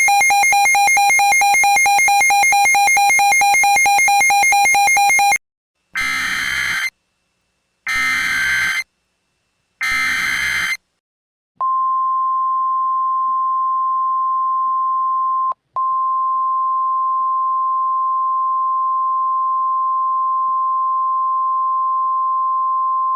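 A buzzy, rapidly pulsing tone for about five seconds, then three short screechy data bursts of an Emergency Alert System (SAME) header. Then the NOAA Weather Radio 1,050 Hz warning alarm tone comes in as one long, steady high beep, with a brief break about four seconds after it starts.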